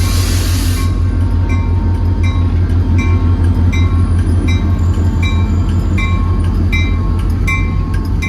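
Diesel train rumbling past with a rushing noise that drops about a second in, while a bell dings steadily about every three-quarters of a second.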